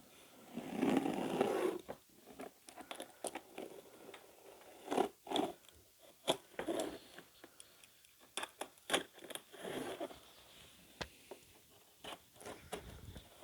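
Packaging being handled and opened by hand: crinkling plastic and cardboard rustling, with scattered short clicks and taps.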